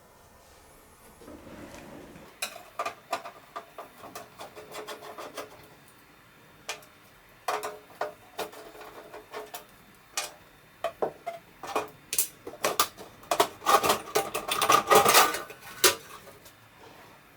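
Metal and plastic parts of an old desktop PC being handled by hand: irregular clicks, knocks and light clattering with some rubbing, busiest and loudest in the last few seconds.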